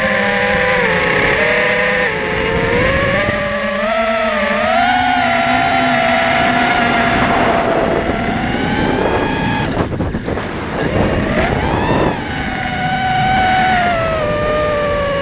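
FPV quadcopter's motors and propellers whining, heard from the onboard camera. Several tones rise and fall in pitch together as the quad flies. About ten seconds in the whine drops away into a rushing noise, then climbs steeply again and settles into a falling tone near the end.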